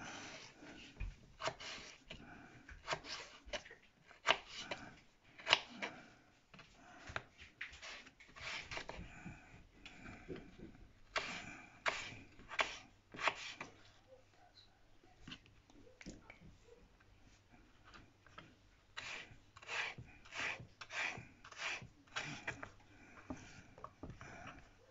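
A kitchen knife slicing raw potatoes into chip strips on a wooden chopping board: a run of short cuts, each ending in a tap of the blade on the board, with a lull in the middle before the cutting picks up again.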